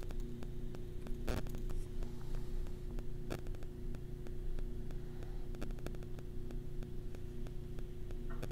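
Steady electrical hum and static hiss from the recording setup, with scattered faint clicks and two slightly stronger ones in the first few seconds.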